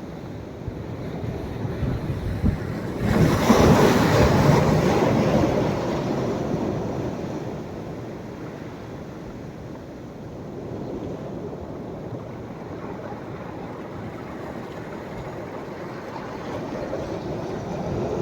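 Sea waves breaking on the shore at a rising tide. A wave breaks loudly about three seconds in and washes out over several seconds, and a smaller one builds near the end.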